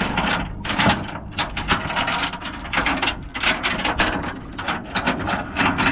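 Steel anchor chain clanking and rattling against the aluminum bow of a skiff as it is unhooked and paid out over the side, a quick irregular run of metallic clanks.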